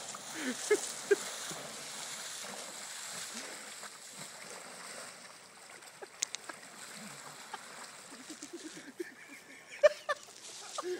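Water splashing and sloshing as a person wades through a shallow stream, steady for the first four or five seconds and quieter after.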